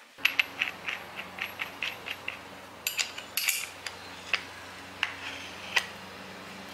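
Light metal clicks and clinks of a chain-tooth carving disc being seated on an angle grinder's spindle and its flange nut tightened with a spanner. The clicks come quickly in the first two seconds, then more sparsely and a little louder, over a faint steady hum.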